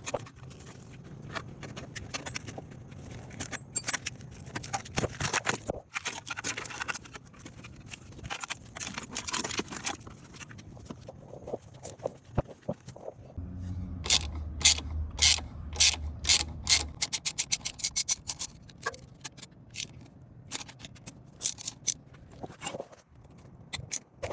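Hand ratchet wrench clicking, with metal clanks and scrapes, as bolts and parts come off a wrecked Honda Civic's front end. About halfway through there is a run of evenly spaced ratchet clicks, about three a second.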